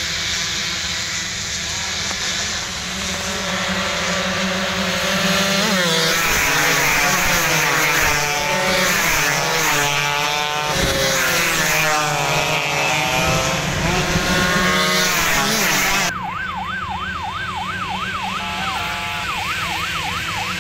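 A pack of two-stroke 116cc underbone racing motorcycles passes at full throttle, many engines at once, their pitches rising and falling as they go by and loudest midway. About sixteen seconds in the sound changes abruptly to a siren wailing up and down about twice a second over distant engines.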